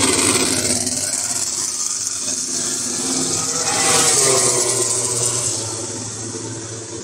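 Vehicle engine running under a rush of road and wind noise, swelling about four seconds in and then easing off.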